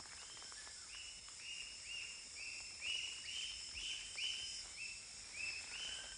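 Rainforest ambience: a steady high insect hiss under a repeated short, high, arched call about twice a second.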